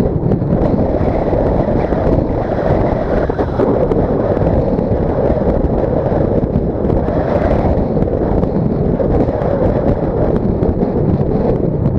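Steady rush of wind buffeting the microphone of a camera mounted on the rear decklid of a moving Dodge Stealth, mixed with road noise, swelling a little now and then.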